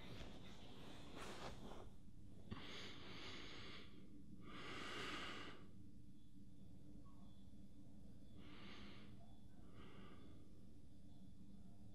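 A sleeping man breathing slowly through his nose, several separate breaths, the loudest about five seconds in, over a low steady room hum.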